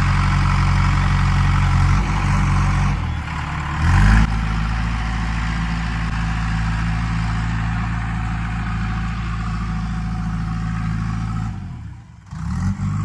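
JCB 3DX backhoe loader's diesel engine running steadily; about three to four seconds in its pitch sags and then picks up again, briefly louder.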